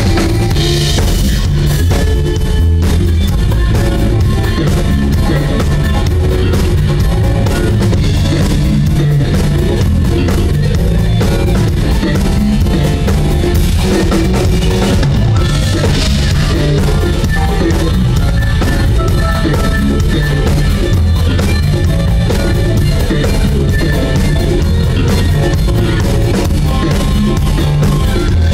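Live band playing loud rock-style music, with a drum kit prominent over bass and guitar.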